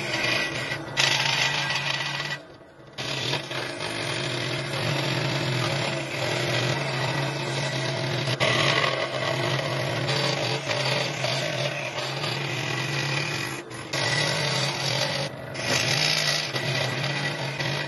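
A power tool running on wood, a steady motor hum under rough cutting or sanding noise, briefly dropping out about two and a half seconds in.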